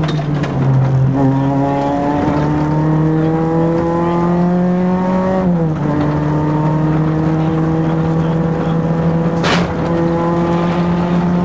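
Renault Clio Williams rally car's 2.0-litre four-cylinder engine under hard acceleration, heard from inside the cabin. The revs dip in the first second, climb slowly, drop sharply about halfway at a gear change, then hold nearly steady. A single sharp crack comes near the end.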